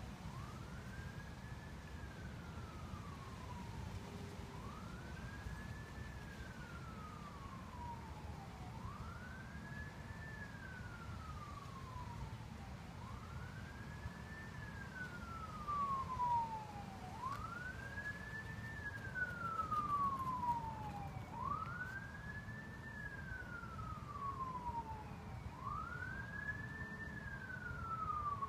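A siren wailing in a regular cycle about every four seconds: each cycle rises quickly in pitch and then falls more slowly. A low, steady rumble runs underneath.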